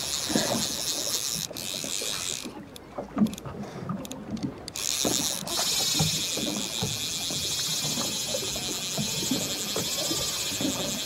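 Fly reel's drag buzzing steadily as a hooked trout pulls line off it, from about five and a half seconds in, after a shorter stretch of reeling. Water slaps and knocks against the boat underneath.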